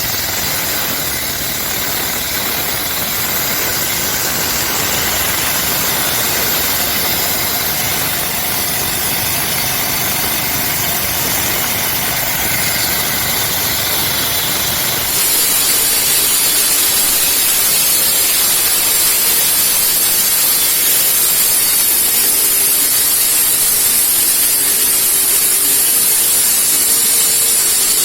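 Engine-driven concrete cutting machine running steadily with a hissing high-pitched whine. About halfway through the sound changes abruptly: the low engine rumble drops away and a harsher high hiss takes over.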